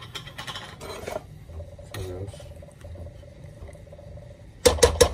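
Wire whisk beating apricot glaze in a saucepan, clattering against the pan's sides in a quick run of clinks, about six a second, that starts near the end. Before it come quieter scrapes and clinks of utensils.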